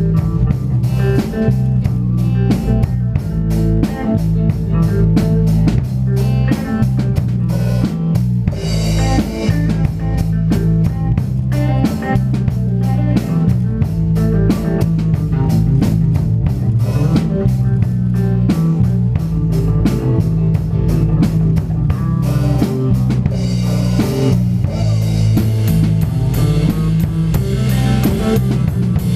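Rock band playing an instrumental passage without vocals: a drum kit keeps a steady driving beat over electric bass and guitars. The drums sound close, heard from on top of the kit, and the cymbals ring out more heavily over the last few seconds.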